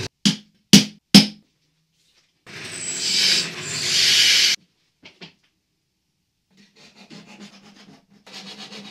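Three sharp metal-on-metal taps in the first second or so, a hammer striking a centre punch to mark the saw blade. Then a pillar drill bores through the thin steel blade for about two seconds, getting louder as it cuts. Faint rubbing and handling follows near the end as bolts are fitted through the handle.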